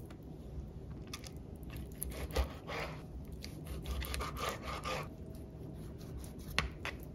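Kitchen food-preparation sounds: a run of quick scraping, rasping strokes for a few seconds, then a couple of sharp clicks near the end.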